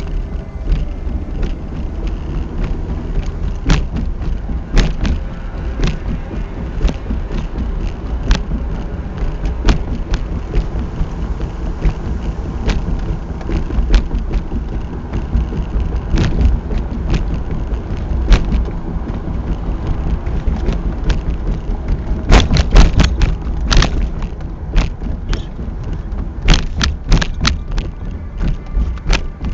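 A car driving on a rough gravel road, heard from inside the cabin: a steady low rumble of tyres and body, broken by frequent irregular knocks and rattles as the car goes over bumps and potholes, in a thick cluster about three-quarters through.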